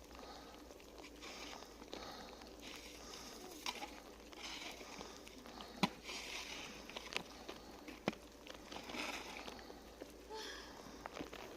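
Snow being shoveled: repeated scrapes of a shovel pushing through snow, with a few sharp knocks of the blade.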